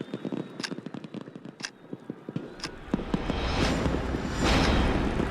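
A clock-like tick sounding once a second, then from about halfway through a growing din of fireworks bursting and crackling, swelling in surges toward the end.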